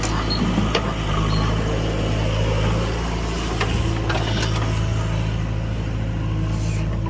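Heavy diesel engine of earthmoving machinery running steadily at a constant speed, with a few light metallic clanks.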